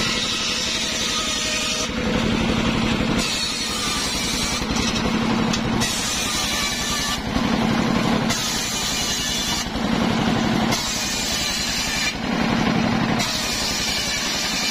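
Homemade table circular saw ripping mahogany boards: the blade's running noise swings regularly between a low hum and a high hiss, each lasting about a second and a half.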